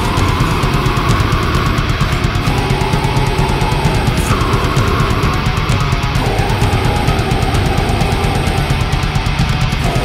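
Death metal recording: heavily distorted guitars and bass over fast, dense drumming, the riff shifting pitch every couple of seconds, with a cymbal crash about four seconds in.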